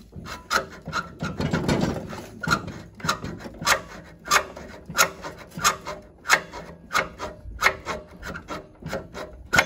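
A large flat file rasping back and forth on the steel tip of a valve stem in a Briggs & Stratton 10.5 vertical-shaft engine, in steady strokes about two a second. Metal is being taken off the stem to open up valve clearance that came out too tight after the valve job.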